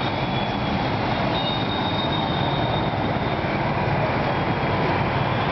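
Steady din of street traffic from auto-rickshaw and motorbike engines on a busy road, with a thin high tone for a stretch partway through.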